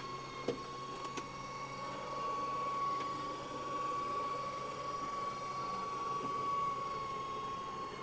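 Travel trailer's electric slide-out room motor running as the slide-out retracts, a steady high whine over a mechanical hum.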